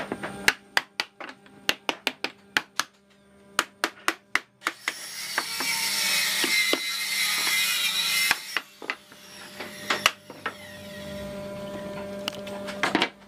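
Hammer knocking on a wooden block to drive together the frame and raised panels of a solid-wood door: a quick run of sharp knocks, then a few seconds of scraping noise, then a few more single knocks. A steady low hum runs underneath.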